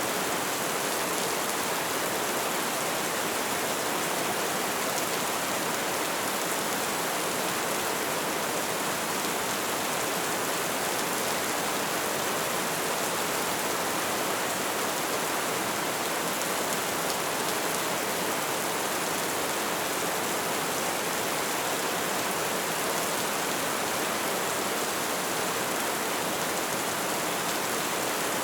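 Steady rain falling, an even hiss of drops on surfaces with no let-up.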